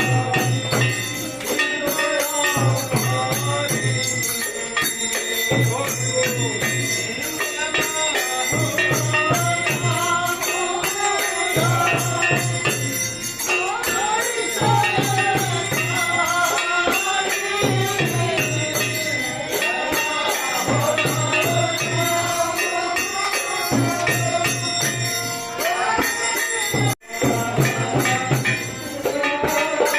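Music: a song with a wavering sung melody over continual jingling bells and a steady pulsing low beat. It cuts out for an instant near the end.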